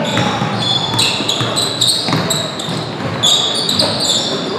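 Basketball in play on a hardwood gym court: many short, high rubber-sneaker squeaks on the floor and the thuds of the ball being dribbled, with players' and bench voices underneath.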